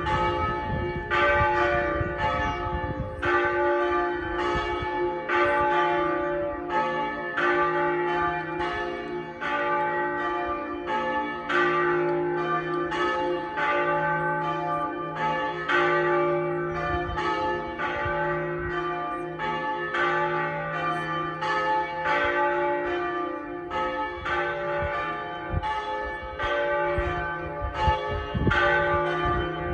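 Pershore Abbey's church bells ringing, with fewer than half of the ring in use. A steady run of strikes, about two a second, each tone ringing on into the next.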